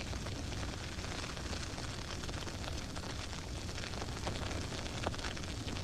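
Dry grass fire burning: a steady rushing noise thick with fine crackles, and a slightly louder pop about five seconds in.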